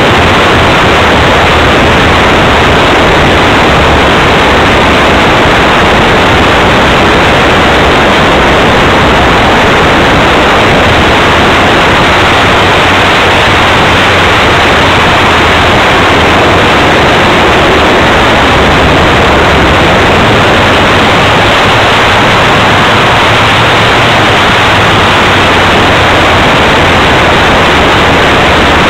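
Steady, very loud rush of wind and propeller noise on the tiny onboard camera of a flying radio-controlled RV-4 model airplane, overloaded into an even hiss-like roar with no change through the flight.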